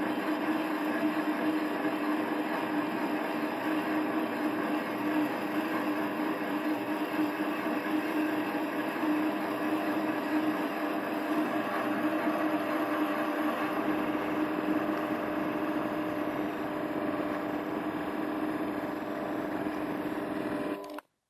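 Variable-speed mini lathe running at low spindle speed under power feed, taking a 10 thou cut in a metal bar with a high-speed steel tool: a steady machine whine of several held tones from the small DC motor and geartrain. It cuts off suddenly near the end.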